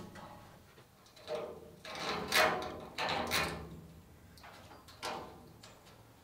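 Four short scrapes and knocks of something being handled or dragged, the loudest about two and a half seconds in.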